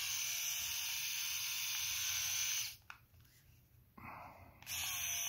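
Philips three-head rotary electric shaver switched on and humming steadily for nearly three seconds, then switched off, then switched on again near the end.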